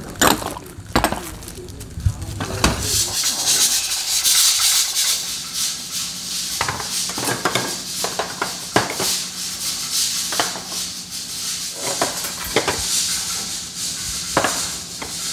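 Small ceramic dishes clink as they are set down on a metal tray. Then a stew boils hard in an earthenware pot over a portable gas burner: a steady hiss with sharp pops and clicks now and then.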